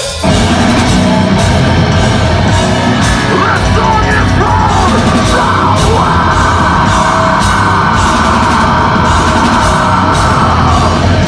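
A deathcore band playing live at full volume: distorted guitars, bass and drums come in together just after the start, with a harsh screamed vocal on top, recorded on a phone near the stage.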